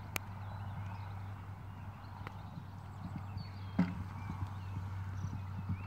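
Pony's hooves cantering on a sand arena, a quick uneven run of soft thuds over a steady low hum. A louder single thump comes about two-thirds of the way in.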